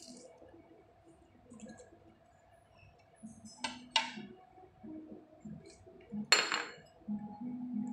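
Metal serving tongs clinking against a ceramic salad bowl: two quick clinks about three and a half seconds in, then a louder one a couple of seconds later.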